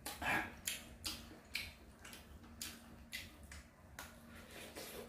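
Wet mouth clicks and lip smacks of someone eating boiled suckermouth armored catfish by hand, chewing and sucking the meat off the bones, about one or two a second, with a louder one near the start.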